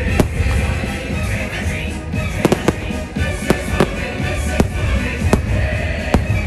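Aerial fireworks bursting, about eight sharp bangs at uneven intervals, over loud show music with heavy bass.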